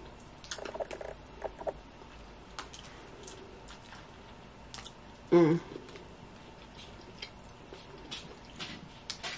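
Small wet mouth smacks and clicks as steamed blue crab is picked apart by hand and the meat sucked from the fingers. A brief, loud vocal sound a little over five seconds in.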